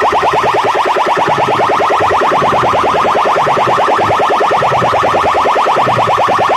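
DJ sound-box loudspeakers blaring an electronic siren effect: a fast train of short rising chirps, about ten a second, with a low pulsing bass underneath.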